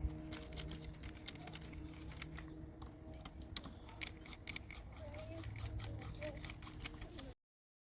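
Quick irregular light clicks and taps of hands handling small engine parts and tools over a steady low hum; the sound cuts off abruptly near the end.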